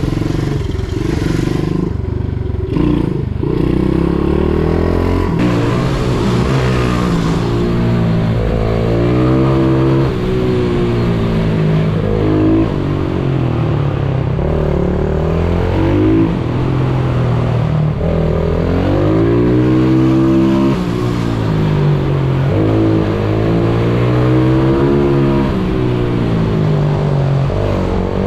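Pit bike engine heard from on board, running low and fairly steady for the first few seconds, then revving up and dropping back again and again, every three to four seconds, as the rider accelerates along the straights and eases off into the corners.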